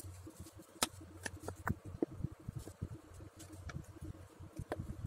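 Scattered small clicks and taps of a plastic glue bottle and plastic cup being handled as glue is squeezed into the cup, over a low steady hum.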